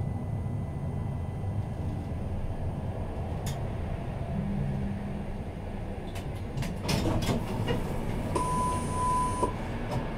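Alstom Citadis Compact tram coming to a stop at the end of the line: a low running rumble as it slows, a cluster of clicks and knocks about seven seconds in, then a single steady electronic beep lasting about a second near the end.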